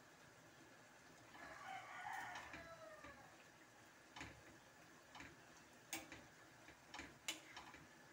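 Metal spoon stirring and knocking against a stainless steel frying pan: a few sharp separate clinks in the second half. Before them, a faint drawn-out call that falls in pitch, in the background.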